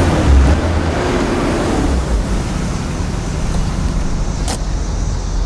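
Street traffic and car noise with a steady low rumble. A pitched hum shifts in the first two seconds, and there is a brief sharp sound about four and a half seconds in.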